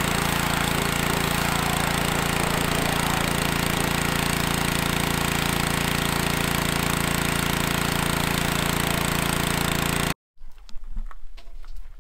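Pressure washer running steadily, a motor hum under the loud hiss of the water spray. It cuts off suddenly about ten seconds in, leaving only faint knocks.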